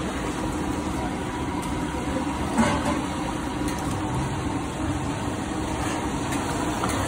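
Steady low roar of a stall's gas burner under a large pot of simmering daal, with one sharp knock about two and a half seconds in.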